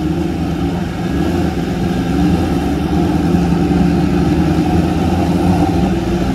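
Drag motorcycle engines idling steadily, slowly growing a little louder.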